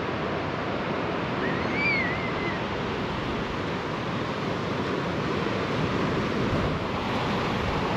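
Surf breaking on a sandy beach: a steady wash of waves, with a brief high, wavering call about a second and a half in.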